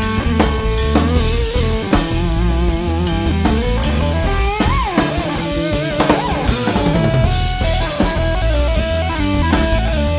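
Blues-rock power trio playing: electric guitar lead with wavering, sustained notes that bend sharply in pitch about halfway through, over bass guitar and a drum kit keeping a steady beat.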